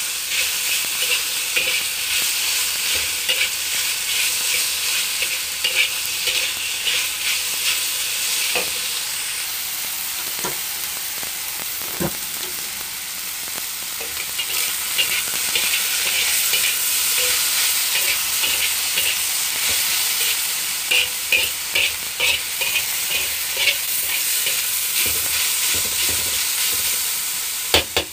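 Beef slices and minced garlic sizzling in a hot wok while a metal slotted spatula scrapes and turns them, the scraping coming in quick runs of strokes. The stirring eases off around the middle, where a few single knocks of the spatula on the wok stand out, then picks up again.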